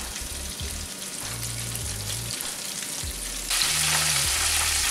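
Breaded chicken pieces deep-frying in hot oil: a steady sizzle that gets louder and brighter about three and a half seconds in, as a wire spider strainer is stirred through the oil.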